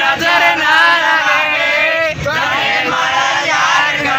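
Group of young men singing and chanting loudly together, several voices at once.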